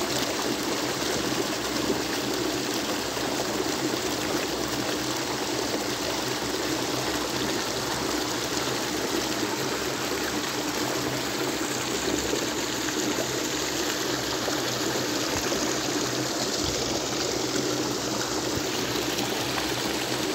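Water pouring steadily over a low concrete weir into a churning, foaming pool.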